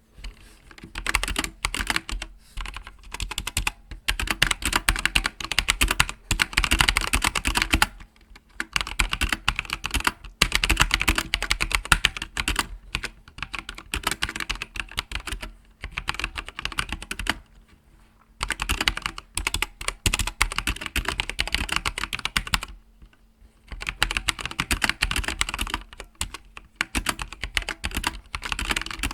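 Typing on a Logitech G513 mechanical keyboard with GX Red linear switches: fast runs of key clacks in bursts of a few seconds, broken by short pauses.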